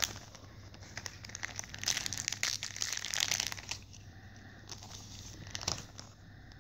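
Plastic trading-card booster pack wrapper crinkling and rustling as the cards are pulled out and handled. It is busiest around the middle, with a few sharp clicks near the end.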